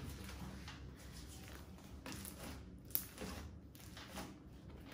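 Slime being worked by hand: pressed flat on a table and stretched into a thin sheet. It makes faint sticky sounds with a few small clicks, one a little louder about three seconds in.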